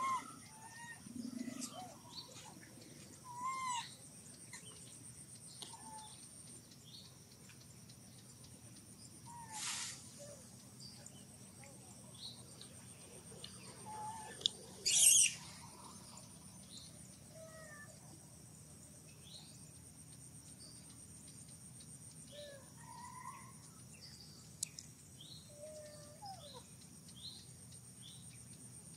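Forest ambience: a steady high insect drone with scattered short chirping calls. Two brief, loud noisy bursts come about ten and fifteen seconds in.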